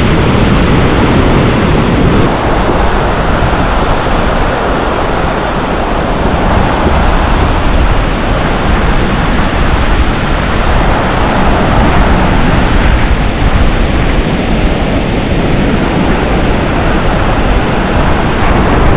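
Loud, steady rush of ocean surf breaking on the beach, mixed with wind buffeting the microphone.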